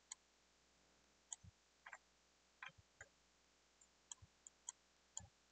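Faint, irregular clicks of a computer mouse's buttons, about a dozen scattered over a few seconds, against near silence.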